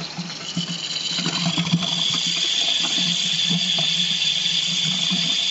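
Mains water hissing and sputtering through a Pentair PRF-RO reverse osmosis unit and its tubing, just after the supply is turned on and the water works its way through. The hiss builds over the first couple of seconds, then runs steadily.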